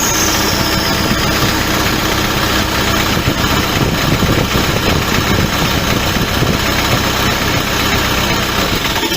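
New Holland LB115.B backhoe loader's diesel engine running steadily for a short test run, shut off near the end and dying away. The injector return (leak-off) line is disconnected during the run so the return flow can be measured.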